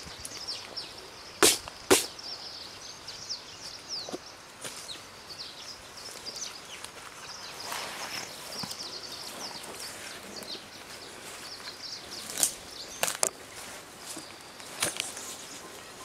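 Many quick, high chirps from birds over a steady background hiss. Sharp knocks break in twice about a second and a half in, and a few more times between twelve and fifteen seconds.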